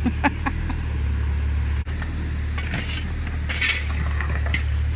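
Digger's diesel engine running steadily, with light metallic clinks and scrapes of tools and the bucket against stones, busiest past the middle.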